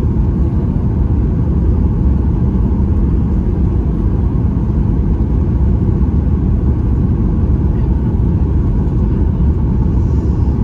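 Steady low cabin rumble inside a Boeing 737-8 MAX in flight: its CFM LEAP-1B engines and the airflow over the fuselage.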